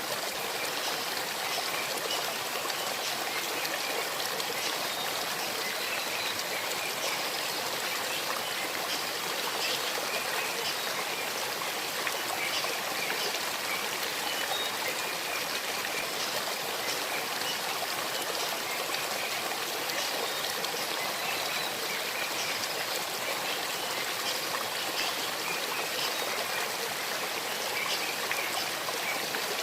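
Gentle stream babbling and trickling over stones, a steady, unbroken rush of water.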